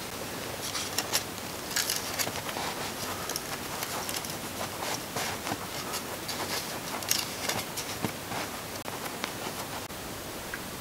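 Fingertips rubbing and scraping wet fire cement against a tin-can rocket stove: a run of short, irregular scratchy strokes that stops about two seconds before the end, over a steady hiss.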